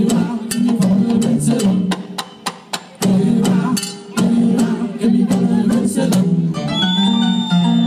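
Live Latin band playing: sharp conga and percussion hits over an electric bass line, with two short breaks in the groove midway. A held high note comes in near the end.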